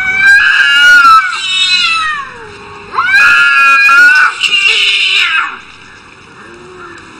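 Domestic cats yowling at each other in a standoff, the aggressive caterwaul before a fight: two long, wavering wails of about two seconds each, a second apart.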